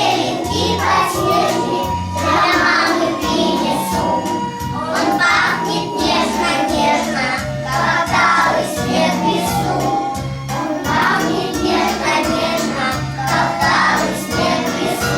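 A group of young children singing a spring song along with a recorded backing track that has a steady bass beat.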